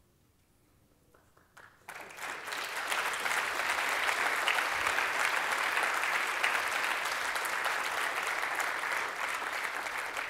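Audience applauding in a hall: a few scattered claps, then full applause from about two seconds in, holding steady and beginning to die down near the end.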